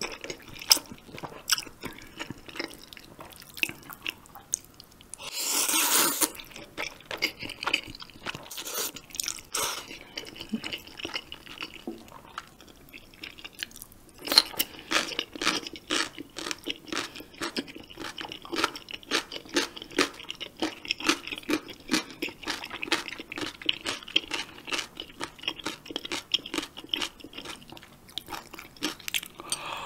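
Close-miked eating of spicy jjamppong noodles: wet chewing with many small clicks throughout, and one loud slurp about six seconds in.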